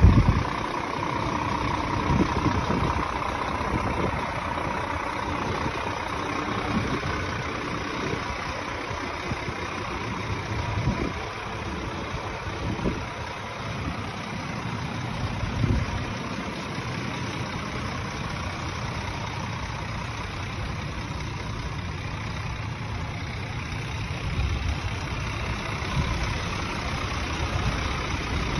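Scania R450 tractor unit's 13-litre six-cylinder diesel engine idling steadily.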